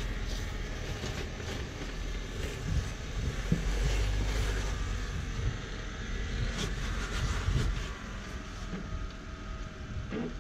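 Jeep Wrangler engine running at low revs while rock crawling, swelling with throttle a couple of times, with a few knocks from the tyres and running gear on rock.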